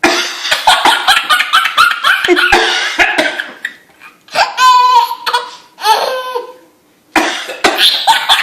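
Baby laughing hysterically at coughing: a rapid run of breathy laughs for about the first three seconds, then high-pitched squealing laughs with short pauses between them, with a cough mixed in.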